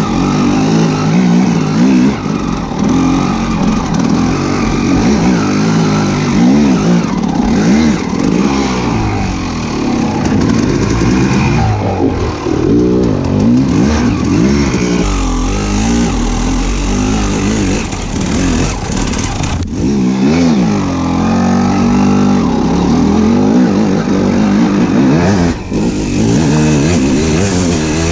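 An engine revving up and down over and over, its pitch rising and falling every second or two.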